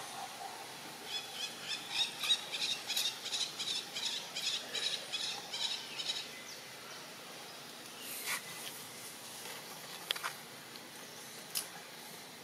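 Outdoor forest ambience: a run of rapid, repeating high chirps lasting about five seconds, then a few sharp clicks near the end.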